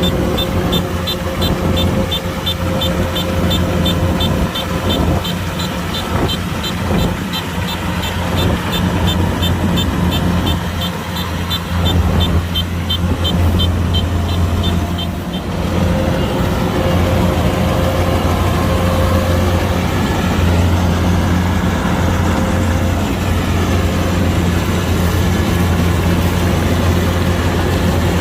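Kubota DC105X combine harvester's diesel engine running steadily under working load. A fast, high-pitched tick repeats several times a second over it and stops about halfway through.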